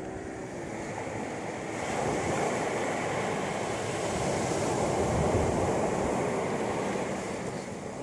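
Sea surf breaking and washing up the shore. The rush swells about two seconds in and dies back near the end.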